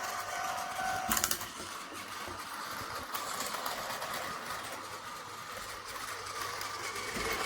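Tomy Plarail battery-powered toy train running on its plastic track, its small electric motor and gears whirring steadily. There is a short cluster of clicks about a second in, and the sound grows quieter through the middle and louder again near the end.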